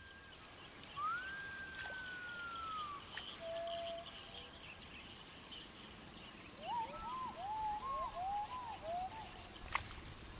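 Insects keep up a steady, high-pitched buzz with a regular pulse about twice a second. A bird gives one long, slowly falling whistle about a second in, then a run of short rising-and-falling whistled notes past the middle.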